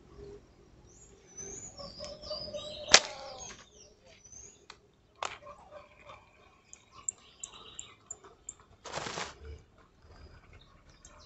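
Wild birds chirping in short, high, repeated notes. A single sharp snap about three seconds in, a softer click a couple of seconds later, and a brief rustle near the end.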